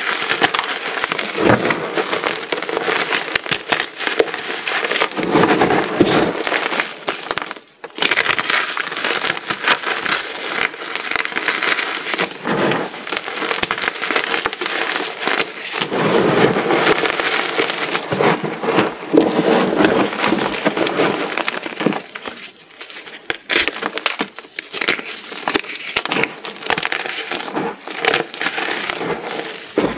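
Many small pieces of reformed gym chalk being crushed together, a dense crunching crackle of many overlapping snaps. It breaks off briefly about eight seconds in and eases for a moment past the twenty-second mark.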